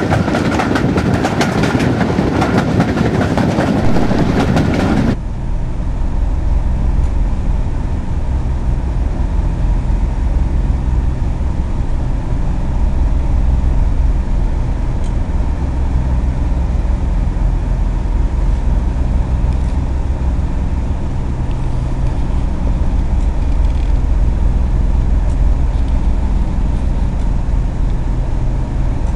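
Train running at speed from inside the coach: rushing wheel-and-rail noise with rapid clicks. About five seconds in this gives way to the steady low drone of a Class 37 diesel locomotive's English Electric V12 engine running just ahead.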